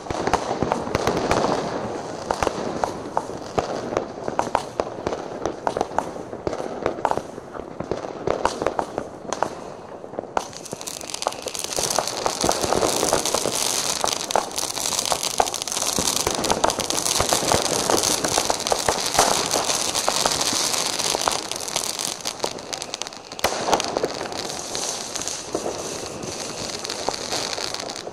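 Many fireworks going off at once: a dense, continuous crackle of bangs and pops from firecrackers and rockets. A strong high hiss joins about ten seconds in and eases off a few seconds before the end.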